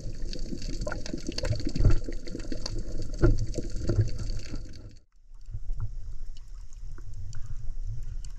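Underwater sound heard through an action camera: muffled water movement with many scattered crackling clicks. About five seconds in it cuts to water washing gently around shoreline rocks.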